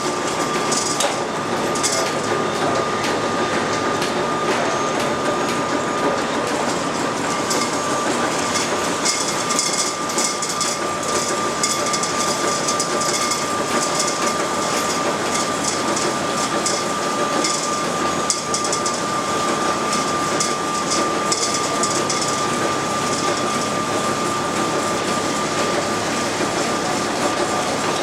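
Early-1900s line-shaft-driven lathe and shaper running, with the overhead shaft, flat belts and pulleys turning. The clattering and rattling is steady throughout, over a constant high whine.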